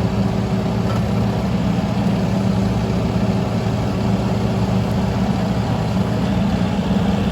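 Takeuchi TB225 mini excavator's diesel engine running steadily at a constant speed.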